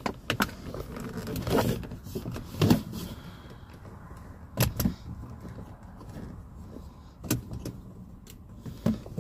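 Scattered soft knocks and rustles of a phone being handled and shifted inside a truck cab, about six separate bumps, over a faint low rumble of wind outside.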